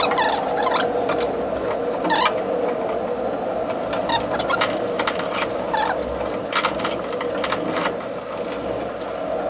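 Scattered light clicks and scrapes of a hand screwdriver working the wire terminals of a consumer unit, over a steady hum.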